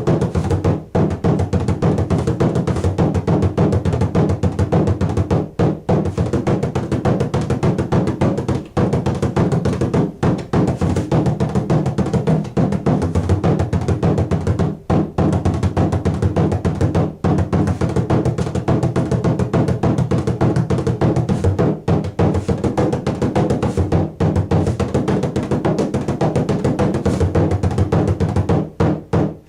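A 16-inch tunable bodhran, the Irish frame drum, played with a tipper in fast, continuous rhythms. It gives a warm, deep tone, with the strokes packed closely and only short pauses between phrases.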